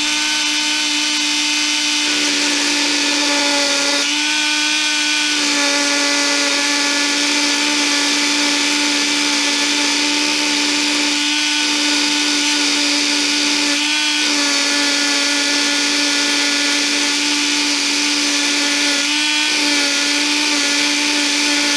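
Dremel rotary tool with a right-angle attachment and an abrasive cutoff wheel running at speed, grinding a flat spot into a brushless motor's metal shaft for the collet's set screws. It makes a steady whine over a grinding hiss, shifting slightly in pitch a few times as the wheel bears on the shaft.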